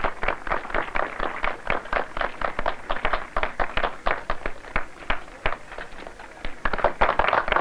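A rapid, irregular patter of sharp taps and thumps, several a second, thinning a little near the end.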